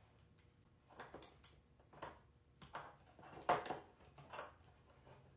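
Two-part Rubio Monocoat wood finish (oil and accelerator) being stirred in a small container, a string of irregular scraping strokes about once a second.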